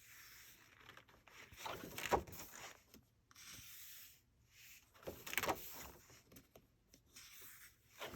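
Pages of a colouring book being turned by hand: paper rustling and rubbing, with the loudest page turns about two seconds in and about five seconds in.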